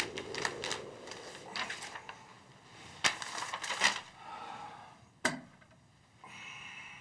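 Sheets of paper rustling and shuffling as they are handled, in a run of short crackles, followed by a single sharp click about five seconds in.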